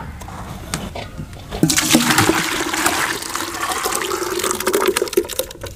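Liquid sardai sloshing and splashing in a clay bowl as it is worked by hand, with a few knocks of a wooden pestle at first; the loud rushing splash starts about a second and a half in.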